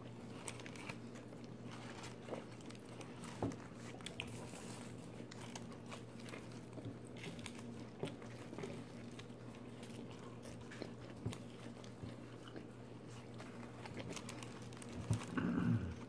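Chewing and biting fast food close to the microphone, with scattered crunches and small mouth clicks over a steady low hum. A louder patch comes near the end.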